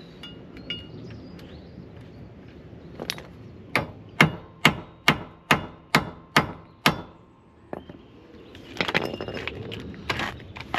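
Hand hammer blows, a steady run of about nine strikes roughly two a second, then a busier clatter of knocks near the end: hammering at rusted, seized bolts.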